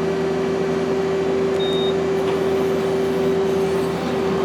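Okuma LB-200MW CNC turning and milling center running with a steady hum and a strong constant tone. A short, high beep sounds about a second and a half in.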